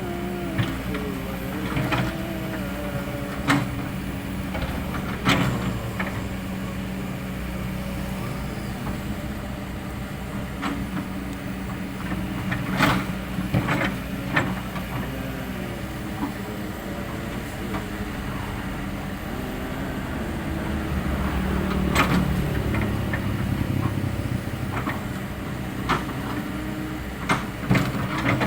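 Kobelco SK200 hydraulic excavator's diesel engine running steadily at work, with sharp knocks every few seconds, a handful in all.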